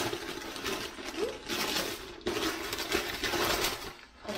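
Paper wrapping crinkling and rustling as it is pulled off an item being unwrapped by hand, dying down briefly near the end.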